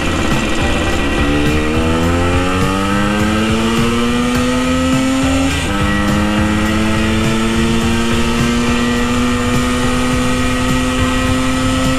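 Vintage Yamaha two-stroke enduro motorcycle accelerating under way: the engine pitch climbs through a gear, drops sharply at a shift about six seconds in, then rises slowly and levels off at a near-steady cruise, with wind rushing over the microphone. The bike is down on top-end power and tops out at about 55 mph.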